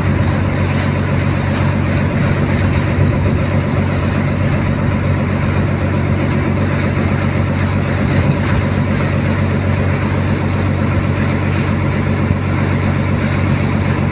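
Boat engine running steadily under way, a constant low drone that holds the same pitch throughout.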